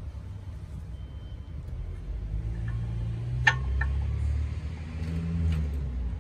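A motor vehicle's engine rumbling nearby, swelling from about two seconds in. Over it come one sharp metallic click and a couple of lighter clicks as brake pads are slid into the rear caliper bracket.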